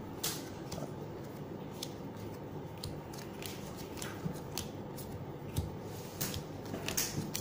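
Trading cards dealt one at a time from a handheld stack onto piles on a playmat: a string of short, light card snaps and slaps at irregular intervals, roughly one or two a second, over a steady low background hum.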